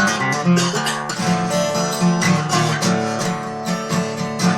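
Acoustic guitar strumming with no singing: an instrumental bridge of a song.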